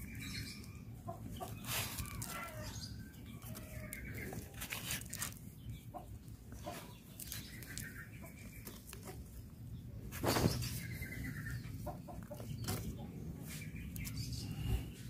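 Chickens clucking now and then in the background, with scattered faint clicks and one louder knock about ten seconds in.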